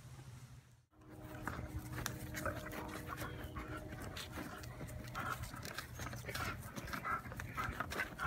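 German Shepherd panting with a stick in its mouth, in quick breathy bursts mixed with many short clicks and scrapes.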